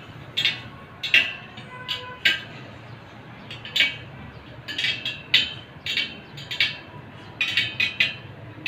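Sharp metallic clicks and taps at irregular intervals, some with a brief ringing tone, from a spoked motorcycle wheel as its spokes are tightened and trued. A low steady hum runs underneath.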